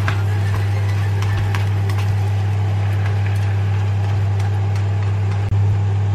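Rice, chorizo and white wine sizzling in a frying pan while a slotted plastic spatula stirs and scrapes it, giving scattered short clicks. A loud, steady low hum runs beneath it all.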